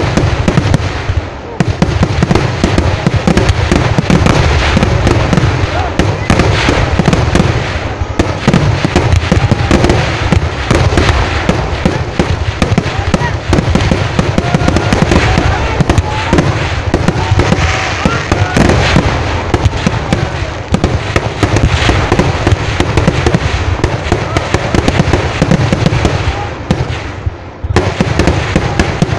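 Fireworks barrage of firecrackers going off close by, a dense, unbroken rattle of bangs, easing briefly about a second and a half in and again near the end.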